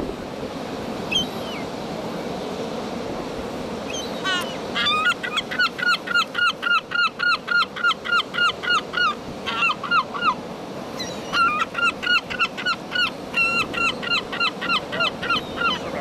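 Herring gull long call: a couple of single calls, then from about five seconds in a fast run of loud repeated calls, roughly three or four a second, each note rising and falling. The run breaks off briefly and starts again, ending shortly before the end.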